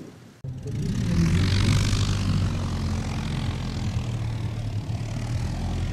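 Aircraft engine noise that comes in abruptly about half a second in: a steady low drone with a hiss that swells over the next second or so and then eases.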